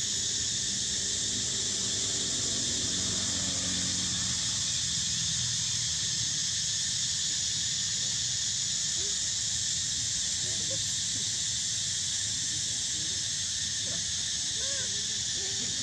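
Steady outdoor chorus of insects, a high continuous shrill hiss. A few faint short squeaks come in over the last few seconds.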